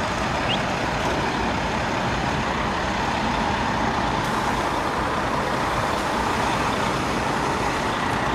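Steady running of large idling diesel engines, from the emergency vehicles and the stopped train, holding an even level throughout.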